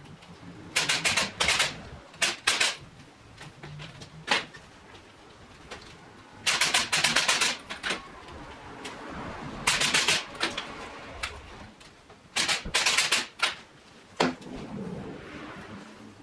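Repeated bursts of rapid, sharp clicking and tapping, in about five groups lasting a second or so each, with single knocks in between.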